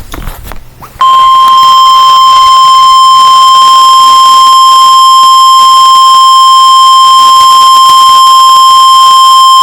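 Weather-radio emergency alert tone: a single steady, piercing tone of about 1050 Hz. It comes on about a second in, after a brief noisy burst, and holds at one pitch, signalling that a warning message follows.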